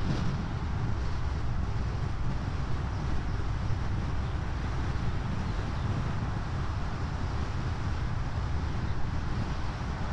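Steady deep rumble of a car driving along a paved road: tyre and wind noise with no change in pace.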